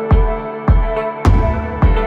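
Background music with a steady beat, a low thump a little under twice a second, over held sustained tones.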